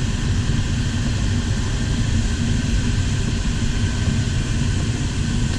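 Steady rush of air past an LS4 sailplane in gliding flight, an even wind noise with no engine.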